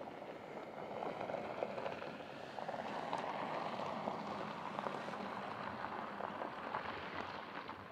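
A Porsche Cayenne SUV driving fast over a loose dirt-and-gravel track: a steady crunching hiss of tyres on gravel with many small crackles of flung stones, a little louder from about a second in.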